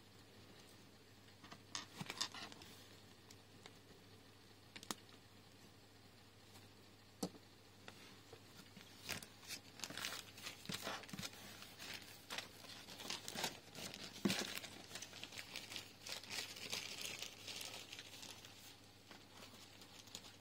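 Small plastic LEGO bricks clicking as they are pressed together and set down, a few separate clicks, then about ten seconds of off-and-on crinkling and rustling of packaging being handled.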